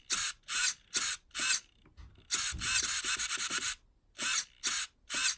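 Recoil pull-starter on a nitro RC car engine being yanked over and over: a run of short rasping pulls about two a second, a longer fluttering stretch in the middle, then two more pulls.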